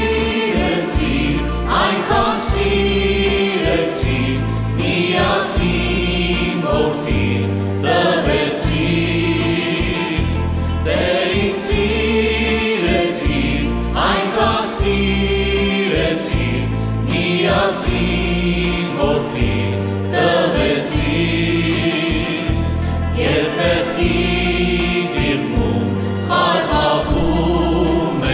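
Armenian Christian worship song: two men and a woman singing together into microphones, backed by a band with a plucked bouzouki-style lute and a qanun over a steady pulsing bass.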